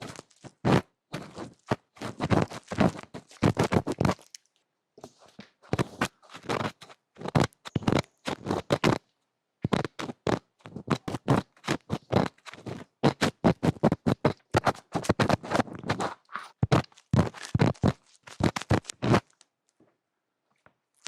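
Close-miked ASMR trigger sounds: quick scratching and tapping strokes in rapid runs, stopping about two seconds before the end.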